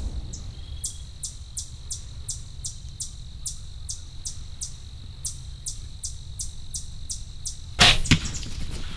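Crickets chirping in an even rhythm, about two to three chirps a second, over a low steady rumble. Near the end a sudden loud sharp crack, the bow being shot at a whitetail buck, followed by a few quicker sharp noises as the deer bolt.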